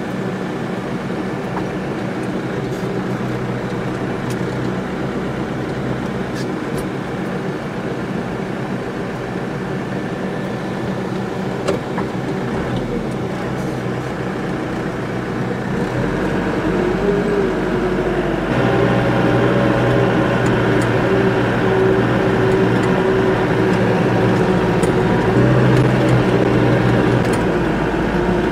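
Diesel engine of a 75-horsepower New Holland loader tractor running steadily. About two-thirds of the way through its pitch shifts and it gets louder, staying louder to the end.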